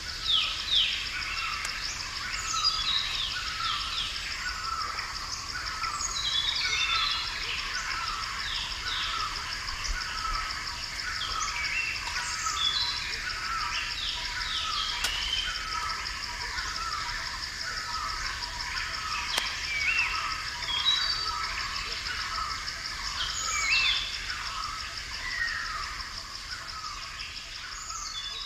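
Forest birdsong from several birds at once: runs of short repeated notes and quick falling whistles, over a steady high-pitched buzz.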